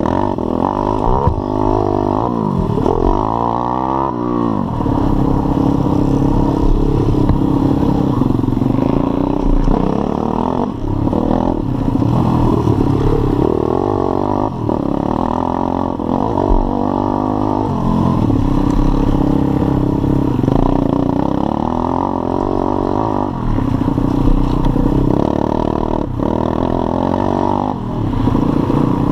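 Pit bike's single-cylinder four-stroke engine revving up and easing off again and again as it is ridden hard over a dirt track, heard close from on board, with occasional knocks from the bike over bumps.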